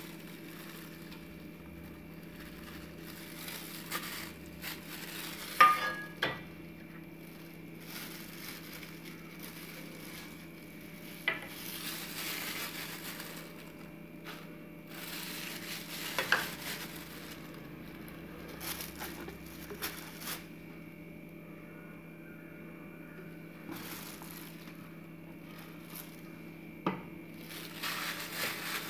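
Quiet food-preparation handling: spices tipped from a steel tray and a plastic bowl onto fish in a steel bowl, then a plastic-gloved hand starting to mix in the marinade. A few light clinks and taps and some soft rustling over a steady low hum.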